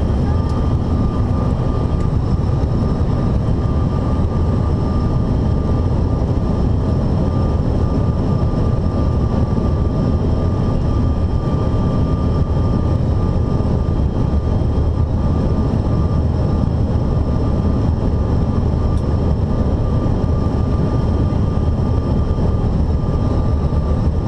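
Cabin noise inside a Bombardier CRJ-900 regional jet on approach: a steady rush of airflow and the drone of its rear-mounted turbofan engines, with a thin, steady whine on top.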